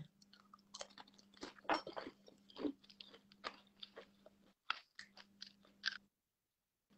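Crunching and chewing of fried crackers (keripik): irregular crisp crackles that stop about six seconds in.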